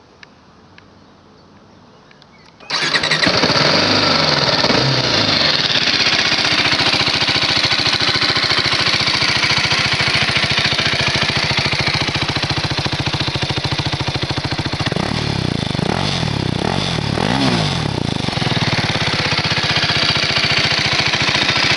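BMW G 310 R motorcycle's single-cylinder engine through its stock exhaust, starting abruptly a few seconds in and then running at a steady idle, with a few quick revs in the second half.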